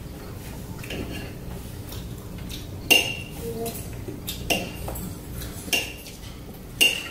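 Metal forks and knives clinking and scraping against ceramic plates during a meal, with several sharp, ringing clinks spaced a second or so apart.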